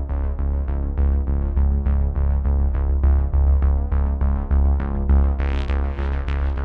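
Electronic background music: held synthesizer chords over a heavy bass with a steady quick beat.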